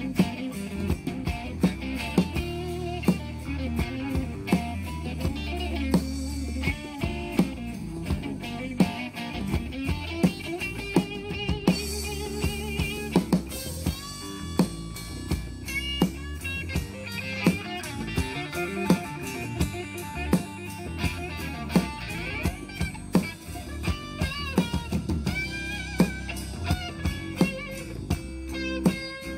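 Live band playing an instrumental passage: electric guitar leading over acoustic guitar, bass guitar and drum kit, with a steady beat.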